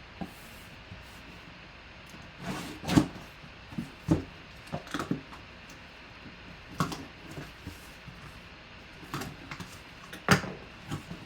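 A cardboard box being cut open and unpacked by hand: scattered knocks, scrapes and rustles of cardboard and packaging. The loudest knocks come about three, four and ten seconds in.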